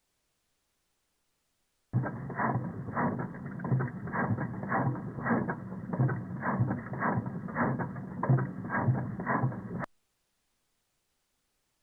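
2002 Honda Civic 1.7-litre inline-four engine running, picked up through a knock sensor as a muffled mechanical sound with a stronger knock about every 0.6 s. It starts suddenly about two seconds in and cuts off abruptly near the end. This recording was used to find a misfiring cylinder.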